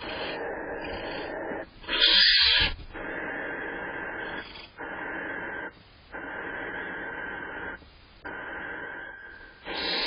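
Female barn owl giving a run of long, rasping hisses, each lasting a second or so with short breaks between. The loudest and harshest comes about two seconds in. It is an annoyed call at the male eating cached prey.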